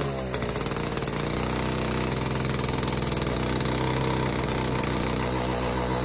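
Old Albanian-made tractor engine running at idle. Its speed dips briefly right at the start, then it picks back up and runs steadily.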